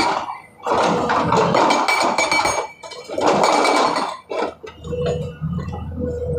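Hydraulic rock breaker on a Sany 210 excavator hammering in two bursts with a brief pause between, clattering with metallic clinks. About two-thirds of the way through the hammering stops and the excavator's engine runs on with a low hum.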